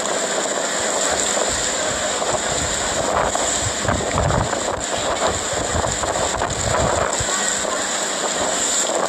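Storm wind blowing steadily, with heavy gusts buffeting the microphone from about three to seven seconds in.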